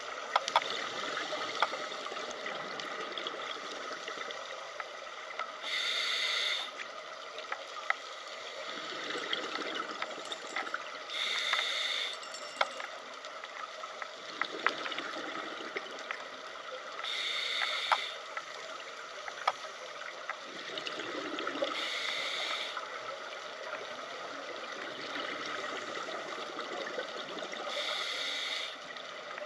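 Scuba regulator breathing heard underwater: five bursts of exhaled bubbles, each about a second long and roughly five to six seconds apart, over a steady watery hiss with scattered faint clicks.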